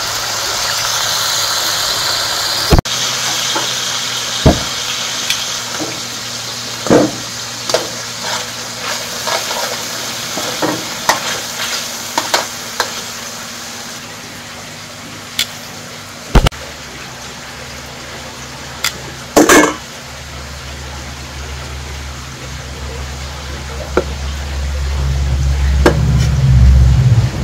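Kitchen cooking sounds: a steady hiss for the first few seconds, then scattered clinks and knocks of utensils against pots and dishes, with a longer clatter a little after the middle. A low rumble builds up loud near the end.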